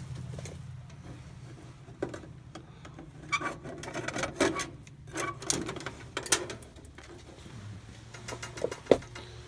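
Yellow-handled pliers and stiff electrical wires clicking and clattering against sheet metal in irregular sharp clicks, the sharpest one near the end, over a steady low hum.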